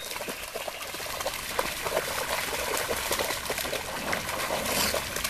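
Two Belgian Shepherd dogs running and wading through shallow lake water: continuous irregular splashing and sloshing of water around their legs.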